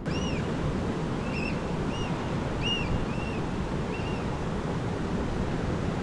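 Ocean surf washing steadily over a rocky tidepool shore, with short rising-and-falling bird calls several times in the first four seconds.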